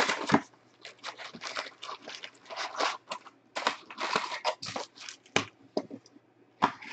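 Panini Prizm basketball card packs, wrapped in foil, crinkling and rustling as they are pulled from a cardboard hobby box and handled, in a run of short, irregular crackles.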